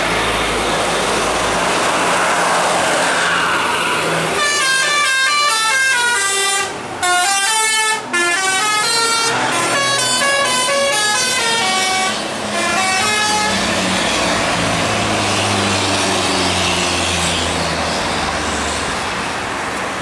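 Bus telolet horn playing a fast tune of quickly changing notes for about nine seconds, starting about four seconds in, over engine and road noise from passing buses. After the tune ends, a bus engine keeps running as it passes.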